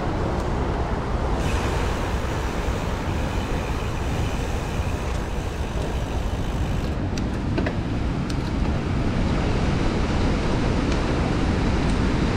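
Steady road-traffic noise mixed with wind noise on the microphone, with a few light clicks around the middle.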